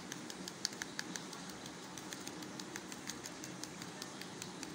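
Faint, quick, irregular ticking, several ticks a second, from a small plastic sieve being tapped and shaken to dust cornflour and powdered sugar over the set marshmallow.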